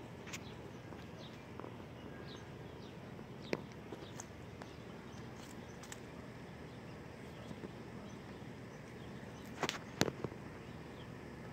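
Quiet outdoor background with a few short, sharp clicks and snaps, two of them close together near the end.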